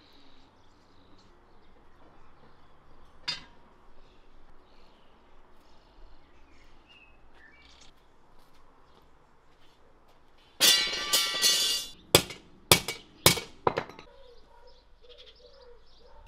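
Small birds chirping, with a single click a few seconds in. About two-thirds of the way through, a second-long burst of metallic clatter and then four sharp metal strikes, as steel rebar is handled and knocked together.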